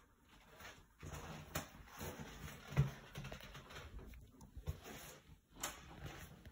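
Footsteps on a wooden floor with rustling handling noise from the phone as it is carried, irregular soft knocks with one louder thump about three seconds in.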